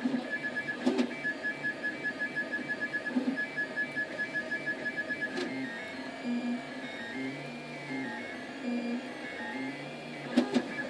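Desktop FDM 3D printer laying down a first layer of infill: its stepper motors give off a rapidly pulsing whine for the first half, then tones that step up and down in pitch like a tune as the print head changes direction, with a few sharp clicks.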